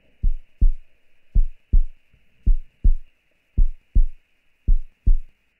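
Deep bass-drum thumps in pairs, like a heartbeat, five double beats about a second apart.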